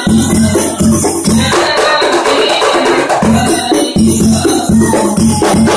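Hadroh percussion ensemble playing a sholawat rhythm: a large double-headed bass drum strikes deep beats in quick groups under the busy patter of frame drums.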